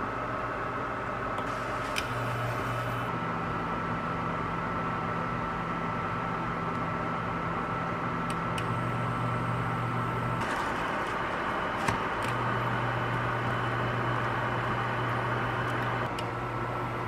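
Steady hum and hiss of a running kitchen appliance with a thin high whine, behind a pan of hotcakes cooking on low heat. A few light clicks.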